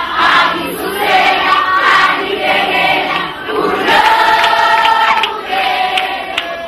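A choir singing, several voices together with long held notes about four seconds in.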